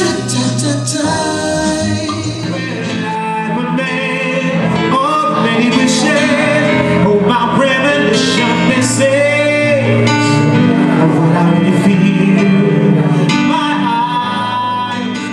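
A male vocalist singing through a handheld microphone, holding long, sliding notes over electric keyboard accompaniment. The music eases off near the end.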